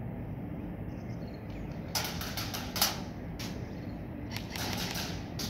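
Airsoft gunfire: irregular sharp clicks and snaps starting about two seconds in, the loudest near three seconds, then a few more, over a steady low background rumble.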